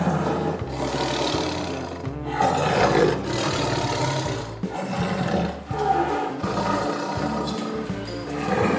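Rough, loud calls of a large animal in several stretches, over background music with a steady bass line.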